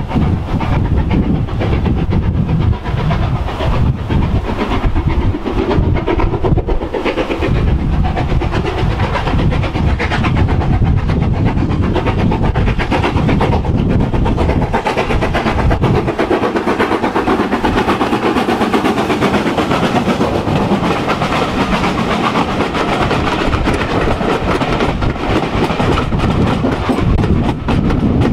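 A BR Standard steam locomotive working a passenger train approaches under steam and runs past, with the coaches' wheels clattering over the rail joints as they go by near the end.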